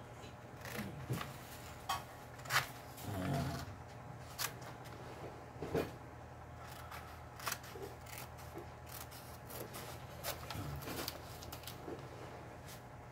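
Scattered light clicks, taps and paper rustles from hand tools and paper being handled on a drawing table, with a faint steady low hum underneath.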